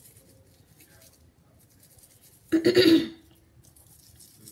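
A person makes one short, harsh throat sound, cough-like, about two and a half seconds in. Faint rubbing of an aloe leaf scrubbed over the scalp runs underneath.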